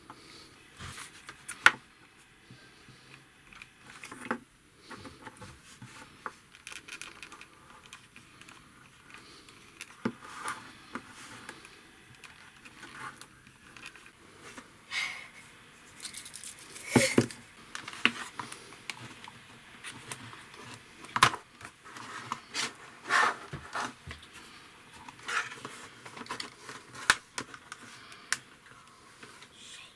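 Handling noises of a plastic bottle cap and clear plastic tubing being worked with a hand tool: irregular sharp clicks, taps and short scrapes, with the loudest snaps about two seconds in and halfway through.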